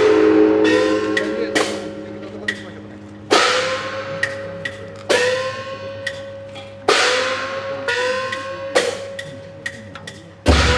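Nagasaki Kunchi festival percussion for the Goshuinsen ship float: sharp strikes about every two seconds, each ringing on with a metallic tone that slides slightly upward, with lighter taps between. A deep drum beat comes in near the end.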